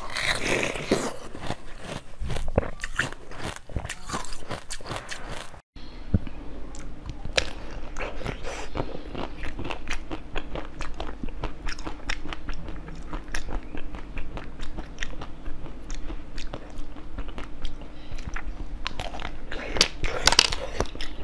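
Close-up eating sounds: soft jelly being bitten and sucked, then, from about six seconds in, crisp crunching bites and chewing of a frozen chocolate-coated bar. A steady low hum runs under the second part.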